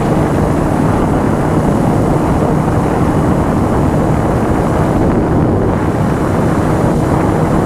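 Heavy wind noise buffeting the microphone on a moving Honda CBR motorcycle, over the engine's steady drone at a constant speed.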